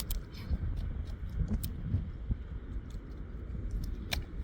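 Eastern imperial eagle tearing at and eating a rodent. Scattered soft clicks and tearing sounds over a low rumble, with a sharper click about four seconds in.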